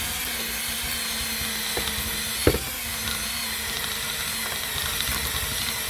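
Cordless Makita drill spinning a quarter-inch extension against heat-softened 3M double-sided tape on a car trim piece, scrubbing the adhesive off. The drill runs steadily, with a sharp knock about two and a half seconds in.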